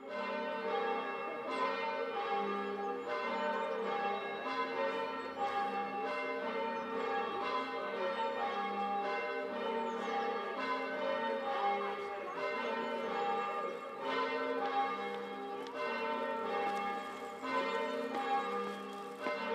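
Church bells ringing, strike after strike in steady succession, each bell ringing on into the next.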